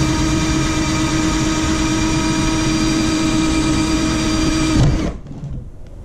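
Handheld power drill running at a steady speed, boring a hole through a car's front bumper. The hole is being opened up to take a rivet nut. The motor stops about five seconds in.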